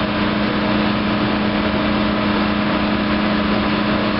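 Air sparge and soil vapor extraction system's vacuum blower and air compressor running together under load, a steady, unchanging drone with a strong constant hum.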